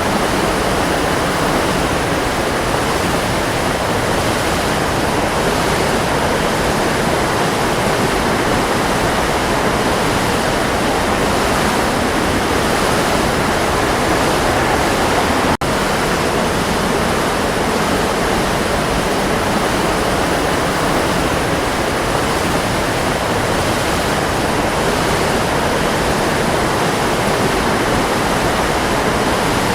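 Waterfall: a steady, dense rush of falling water, with a momentary dropout about halfway through.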